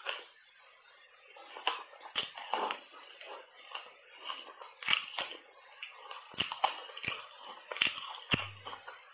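Matcha-powdered ice being crunched and chewed in the mouth: irregular sharp cracks with softer crackling between, the cracks coming closer together in the second half.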